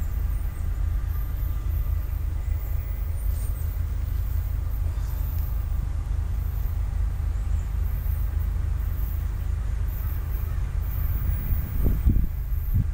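Low, steady rumble of an approaching freight train led by a CSX ES44AH diesel locomotive, still out of sight. There is a brief thump near the end.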